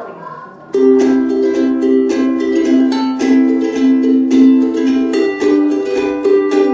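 Loud music, a plucked-string melody over quick, busy percussion hits, that starts suddenly about three-quarters of a second in.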